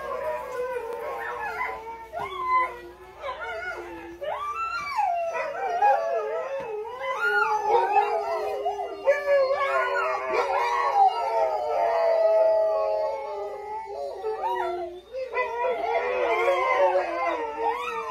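Dogs howling together, long wavering howls overlapping one another; the howling briefly drops off about three-quarters of the way through, then starts up again.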